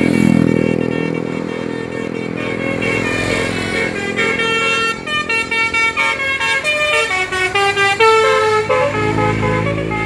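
Telolet multi-tone musical horn playing a tune over a running engine: held tones at first, then a quick run of short notes stepping up and down in pitch from about halfway through.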